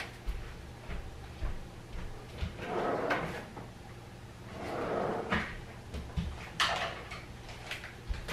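Kitchen drawers and cupboard doors being opened and shut: a few sliding swells with small knocks in between.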